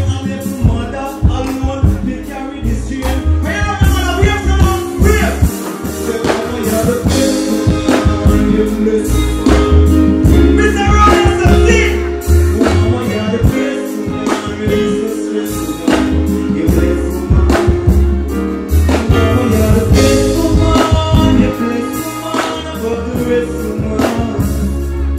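Live dancehall performance: a deejay vocalling into a microphone over a loud, bass-heavy beat played through the stage PA.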